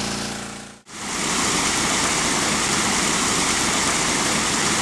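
A portable engine-driven water pump running with a steady hum, fading out under a second in. After a brief dip it gives way to a steady, even rushing noise.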